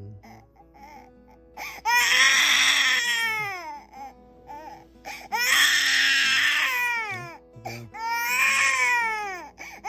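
A baby crying: three long wails, each starting high and falling in pitch, with short gaps between them.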